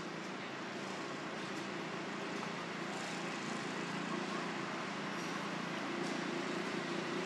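Steady outdoor background hum and hiss, with a faint low drone running under it and no distinct event.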